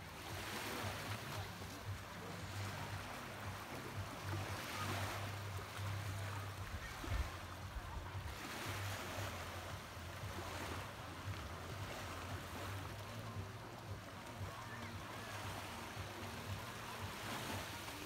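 Small sea waves washing at the shore, the wash swelling and fading every few seconds, over a steady low hum.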